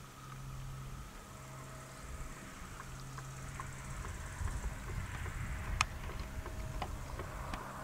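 Pesa Elf EN96 electric multiple unit heard from afar as it pulls away from a stop: a low rumble that slowly grows louder, with a faint steady tone over it and a few small clicks, one sharper near the end.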